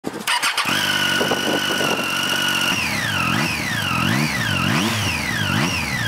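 A Triumph Street Triple's inline three-cylinder engine starts and settles into idle with a steady high whistle. From about halfway through it is blipped on the throttle about four times, and the whistle and whine rise and fall with the revs. This whine is the sound typical of inline triples, put down to the straight-cut gears that drive the counterbalancer shaft.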